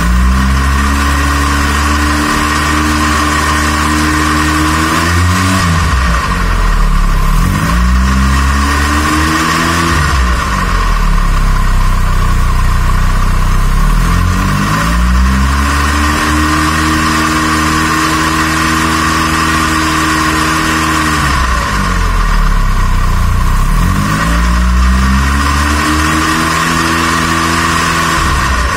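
Gasoline engine on a test stand being revved up from idle four times, holding a higher speed for a few seconds each time and then dropping back to idle; the throttle is opened so the centrifugal advance pulls the ignition timing forward. A steady high whine sits underneath.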